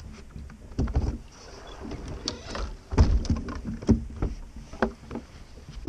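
Bow-mounted electric trolling motor on a bass boat being pulled up and stowed on its deck mount: a string of irregular clunks and knocks, the loudest about three seconds in.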